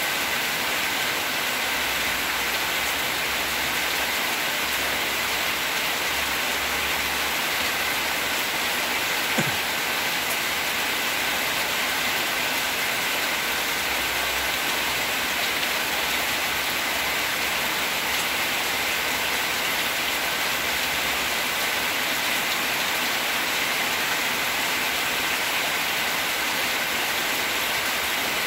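Steady, even hiss with no change in level, and a single brief knock about nine and a half seconds in.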